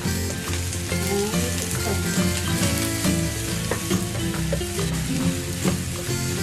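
Sliced okra sizzling in a frying pan as a wooden spatula stirs and scrapes it, with short clicks of the spatula against the pan, over background music.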